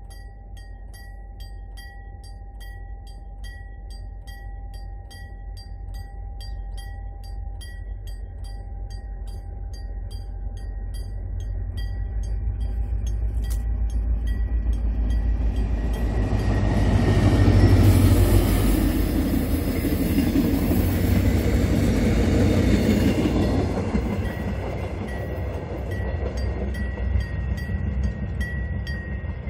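Diesel locomotive hauling a Mugunghwa passenger train: its engine and wheels build from a distant rumble to a loud pass about 18 seconds in, then ease off as the coaches run by. A level-crossing warning bell rings in a regular rhythm behind it.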